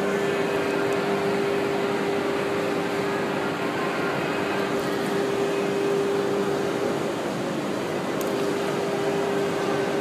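Electric lift motor of a remote-controlled lifting bed frame running, a steady mechanical hum at one constant pitch.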